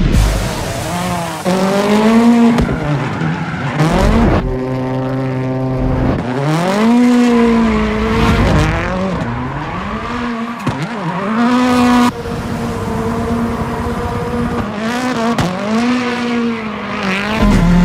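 Hoonigan Ford Fiesta ST rally car being driven hard: the engine revs up and down over and over, with tire squeal as the car slides. The sound jumps abruptly a few times where shots are cut together.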